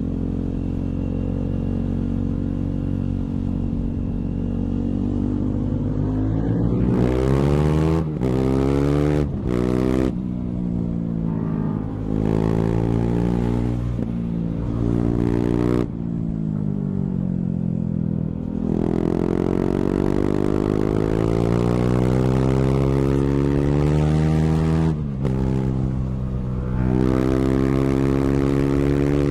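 KTM 390's single-cylinder engine with the dB killer taken out of its exhaust, ridden hard: the exhaust note climbs in pitch again and again and then drops, with short breaks between, as the bike accelerates through the gears and slows.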